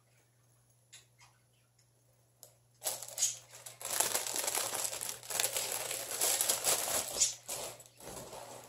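Thin clear plastic bag crinkling and rustling loudly as a canvas pouch is pushed back into it and the plastic packaging is handled. It starts about three seconds in, after a few faint taps.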